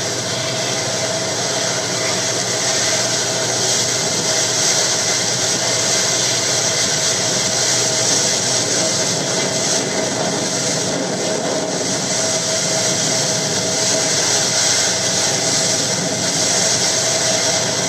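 Steady drone of a boat's engines under way, with rushing wind and water, unbroken and even in level.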